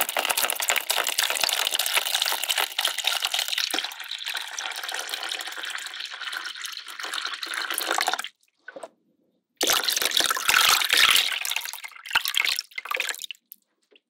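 Water pouring and splashing in two stretches: a long one that stops about eight seconds in, then after a pause of about a second and a half, a second one lasting about four seconds.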